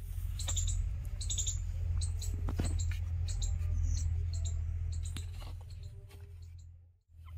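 Newborn puppies squeaking, many short high-pitched peeps while nursing, over a steady low hum. The sound drops out briefly near the end.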